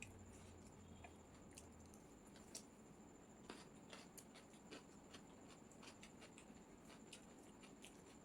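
Faint sounds of eating chow mein: scattered small clicks and soft wet chewing noises.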